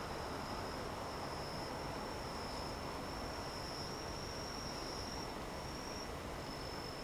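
Crickets trilling steadily in one unbroken high-pitched tone, over a constant low background hiss.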